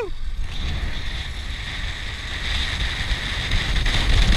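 Zipline trolley running along the steel cable: a hiss that builds about half a second in and grows louder, with wind buffeting the microphone in a low rumble.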